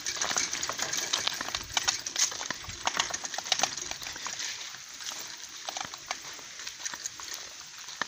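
A bicycle being pushed along a grassy track, with footsteps: irregular rustling and clicking.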